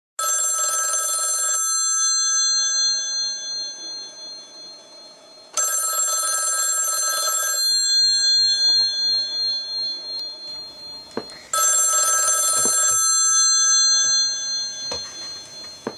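Telephone bell ringing three times, about five and a half seconds apart; each ring lasts one to two seconds and then dies away.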